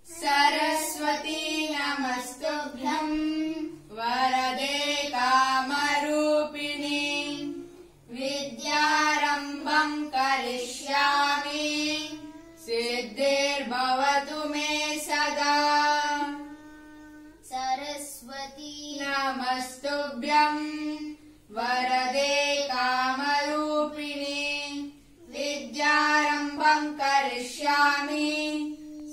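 Children singing a devotional prayer song to Saraswati, in phrases of a few seconds each with short breaths between them.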